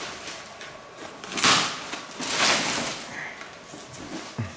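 Crumpled newspaper packing rustling and crackling as it is pulled out of a cardboard box, in a few short bursts, with a soft knock near the end.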